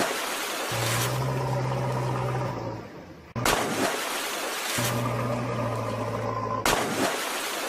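A looped soundtrack laid over the picture. It repeats about every three and a half seconds, each cycle starting with a sudden loud burst over a steady low hum.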